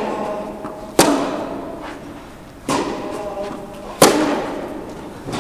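Tennis ball being hit back and forth in a rally: four sharp pops about a second and a half apart, each echoing in the large indoor tennis hall.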